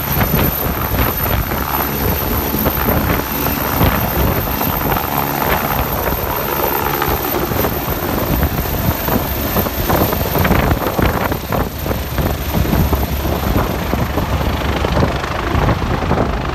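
Agusta A109 twin-turbine helicopter lifting off and climbing away: loud, steady rotor and turbine noise, with the rotor downwash gusting against the microphone.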